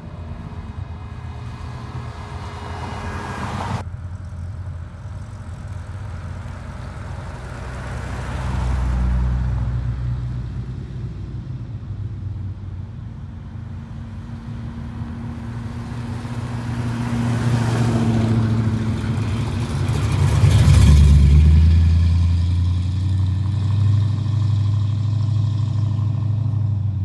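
Show cars driving out one after another with their engines running. One passes more loudly about nine seconds in, and the loudest, with a deep low exhaust rumble, passes around twenty-one seconds in.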